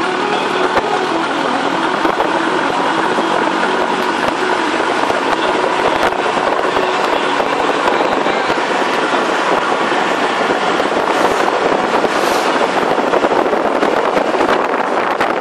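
Cabin noise of a moving bus: steady engine and road noise with constant rattling from the body, seats and windows, the rattling thicker near the end.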